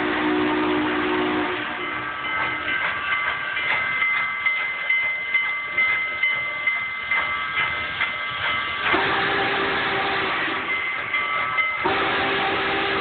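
Steam locomotive's chime whistle blowing a chord, then a stretch of rhythmic beats about twice a second over ringing higher tones, then the whistle sounding again about nine seconds in and once more near the end.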